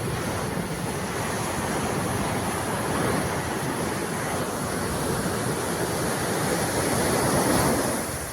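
Sea surf washing onto the beach, with wind on the microphone. The rush builds slowly to a peak near the end, then falls away.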